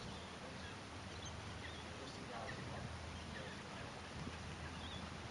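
Birds chirping faintly in short scattered calls over a steady low outdoor background hum.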